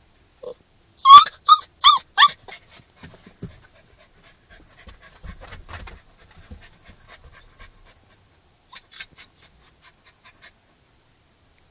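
Newfoundland-Labrador mix puppy giving a quick run of four or five short, high-pitched howling yelps about a second in, then panting quietly. The howls are the distress of a puppy separated from his people.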